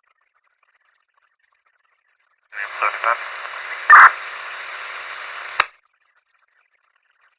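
Police radio scanner: a transmission keyed up about two and a half seconds in, carrying about three seconds of static hiss with a thin steady high tone and a few short garbled blips, one of them loud, then cut off by a squelch click.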